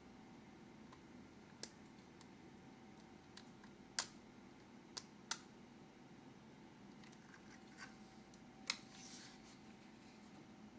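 A handful of isolated sharp clicks and taps from handling a Keychron K1 low-profile mechanical keyboard, the loudest about four seconds in and a quick pair about a second later, with a faint rustle near the end.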